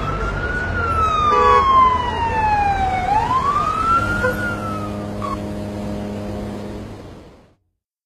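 A siren wailing, its pitch rising and falling slowly twice, over low traffic rumble. A steady low hum joins about halfway through, and everything fades out near the end.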